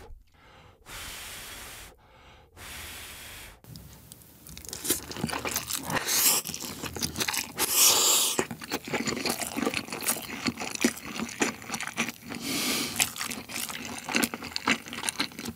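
Two long puffs of air blown on hot noodles, then close-up slurping and wet chewing of spicy ramen rabokki with rice cakes and cheese. Sharp breaths are blown out through pursed lips against the heat of food hot enough to burn the mouth.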